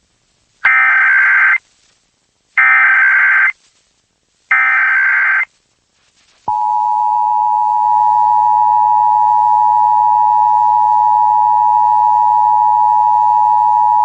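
Emergency Alert System test alert starting: three one-second bursts of the digital SAME header data, about a second apart, then the steady two-tone EAS attention signal, which starts about six and a half seconds in and holds.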